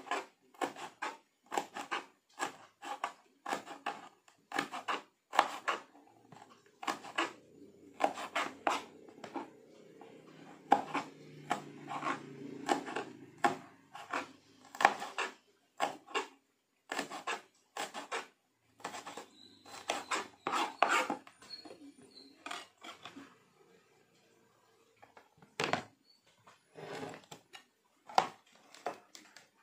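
Kitchen knife striking a cutting board again and again as red chilies are sliced, about two cuts a second. The cutting stops about three-quarters of the way through, and a few scattered knocks follow.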